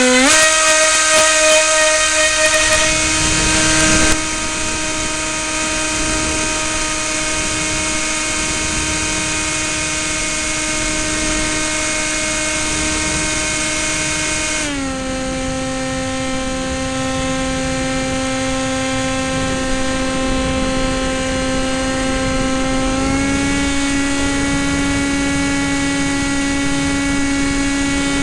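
Electric motor and propeller of a Sky Surfer RC plane running at high throttle, a steady high whine. It is eased back to a slightly lower pitch about 15 seconds in and nudged up again about 23 seconds in.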